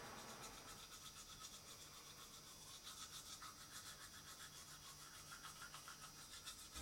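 Faint toothbrush scrubbing on teeth, in quick, even strokes.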